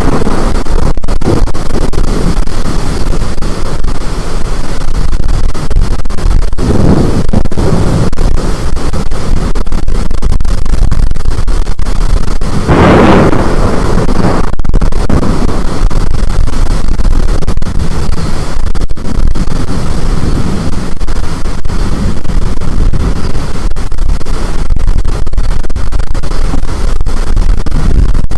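Storm wind blasting the microphone in a constant, very loud roar that keeps the recording pinned near full volume. There is a louder surge about halfway through.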